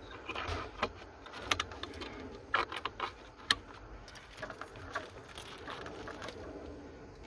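Wiring harness and plastic connectors being handled around a car fuse box: rustling of wires with scattered sharp plastic clicks, the loudest about three and a half seconds in.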